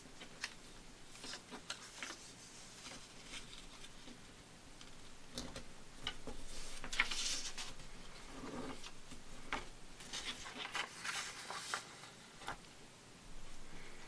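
A sheet of graph paper being folded and creased by hand: crisp rustling, sliding and crinkling in short bursts. The rustling is busier about halfway through and again a few seconds later.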